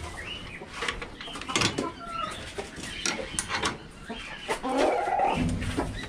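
Chickens clucking, with scattered clicks and a low rumble near the end.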